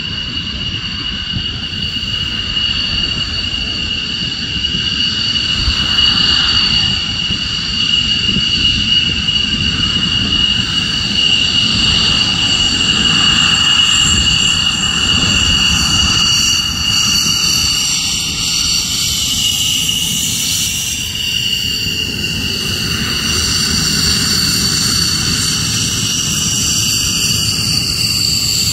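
Military jets taxiing: F-15 Eagles and an F-117 Nighthawk with their turbofan engines at low taxi power, a steady high-pitched whine over a low rumble. The sound grows louder over the first several seconds as the jets come closer.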